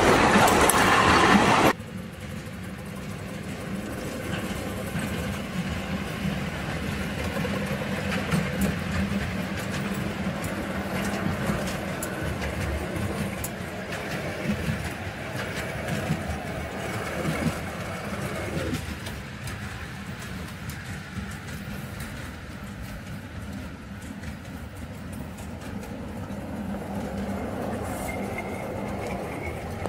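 Miniature live-steam locomotive running on a garden railway with its riders, a steady rolling and working sound from the engine and its wheels on the track. A louder, closer passage cuts off sharply about two seconds in.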